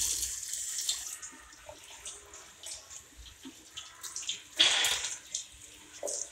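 Tap water running into a stainless steel sink basin, loud at first and easing off, with a second strong gush about four and a half seconds in and smaller splashes between.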